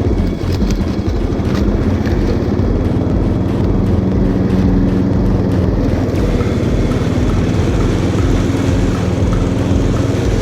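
Small engine of a 1995 Craftsman riding lawn mower running steadily with a low throb.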